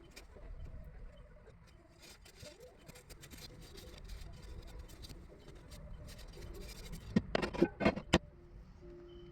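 Soft rustling and light ticks of things being handled, then a quick run of about five sharp knocks or clacks about seven seconds in.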